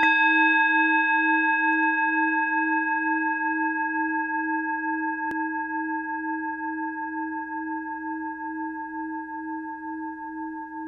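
A single struck bell-like tone, rung once and left to ring, with a slow wobble of about two pulses a second, fading gradually until it is cut off abruptly near the end.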